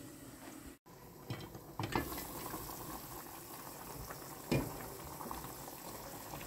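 Large aluminium pot of tarkhina soup boiling on a gas stove, a steady bubbling with a few short knocks, the loudest about four and a half seconds in.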